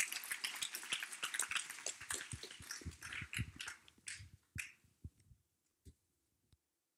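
Applause from a small congregation: scattered hand claps, dense at first, thinning out and dying away after about five seconds.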